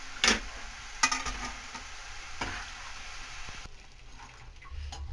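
A batch of namak paare (maida dough pieces) sizzling as they deep-fry in hot oil, with three sharp knocks of a utensil against the pan as they are stirred. The sizzle drops away sharply a little under four seconds in.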